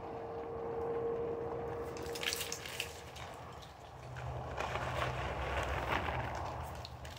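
Scattered crunching and rustling in dry leaf litter as wild hogs root and feed, with a thin steady tone for the first few seconds and a low hum starting about four seconds in.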